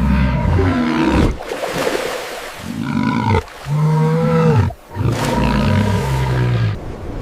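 A large animal's deep roaring calls, about four in a row with short breaks between them.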